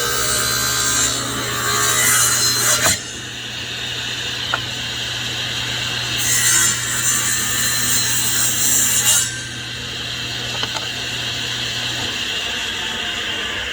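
SawStop table saw running, its blade cutting through wood twice: one cut ends about three seconds in, a second runs for about three seconds in the middle. The saw's steady hum stops about twelve seconds in.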